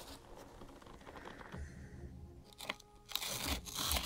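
Foam-insulated crystal oven insert being pried and slid out of its metal can with a screwdriver: crunching, tearing scrapes of the foam against the metal, with scattered clicks, loudest in the last second.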